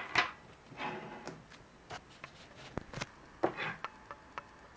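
A plastic laptop AC adapter and its cable being handled and set down on a wooden table: a sharp knock at the start, then lighter clicks and taps, with two short spells of cable and plastic rustling and rubbing.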